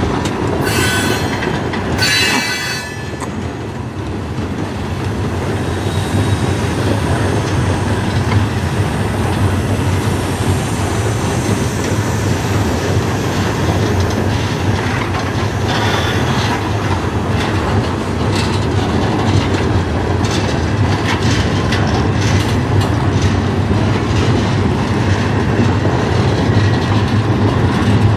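Freight train cars rolling past at close range: a steady rumble of steel wheels on rail, with clicks as the wheels pass over rail joints. Two short, high-pitched wheel squeals come in the first few seconds.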